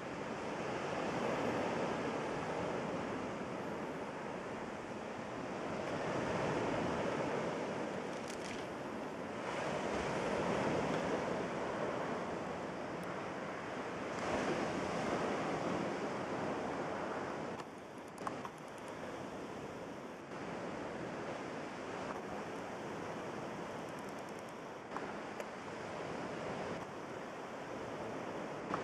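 Small sea waves breaking and washing over a fine pebble beach, swelling and fading every four to five seconds, softer in the second half.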